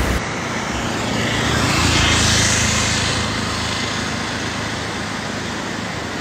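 Floodwater rushing steadily, with a motor vehicle passing close by: an engine hum and a swell that grows louder about a second in, peaks around two seconds and fades.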